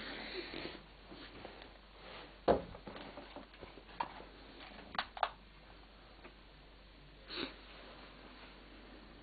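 Faint handling noises: a few sharp clicks and taps about two and a half, four and five seconds in, and a short breathy rustle near seven and a half seconds.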